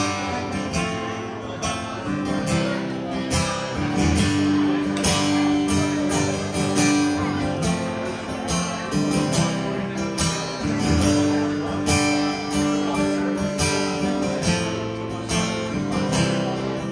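Acoustic guitar strummed in a steady rhythm, chords ringing on between strokes: an instrumental stretch of a live song with no singing.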